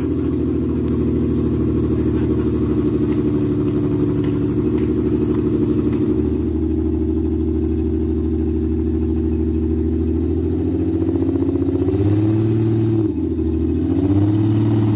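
Six-cylinder car engine, converted from carburettors to fuel injection run by a custom-built ECU, running steadily at idle, then revved twice near the end, the pitch rising and falling each time.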